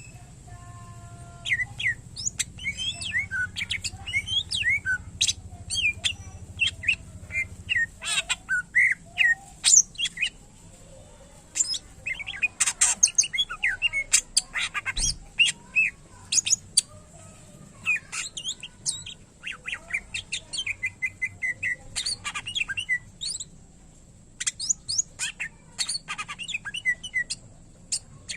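Greater green leafbird (cucak ijo) singing a long, varied stream of rapid chirps, short whistles and trills, its song full of mimicked calls of other birds. There are brief pauses about eleven seconds in and again near the end.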